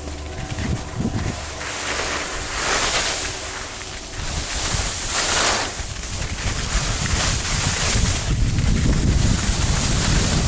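Skis sliding and scraping over packed snow, a steady hiss that swells twice, about two and a half and five seconds in. Wind buffets the microphone, growing into a heavy rumble over the last couple of seconds as the skier picks up speed.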